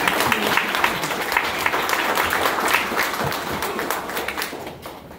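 Audience applauding with many quick irregular claps, dying away near the end.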